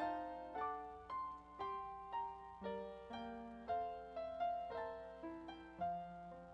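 Piano playing a gentle melody over chords, each note struck and then fading, a new note about every half second.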